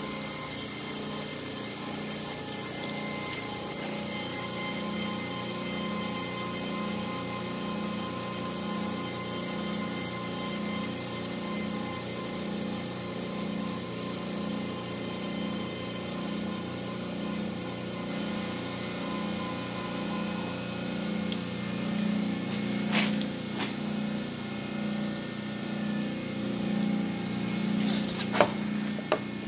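Steady electric machine hum with a regular pulsing, and a few sharp clicks near the end.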